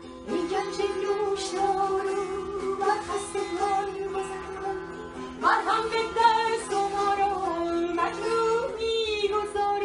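A woman singing a Persian song in long held notes that bend in pitch, accompanied by a long-necked plucked lute; her voice comes in just after the start over the instrument.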